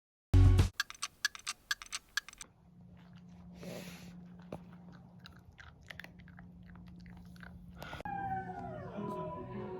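A puppy chewing: a quick run of sharp crunching clicks after an opening thump, then quieter scattered mouthing noises over a low hum. Music with falling notes comes in about eight seconds in.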